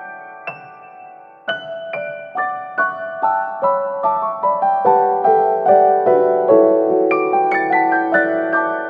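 Background piano music: a melody of single struck notes that ring and fade. It pauses briefly about a second in, then resumes at roughly two to three notes a second.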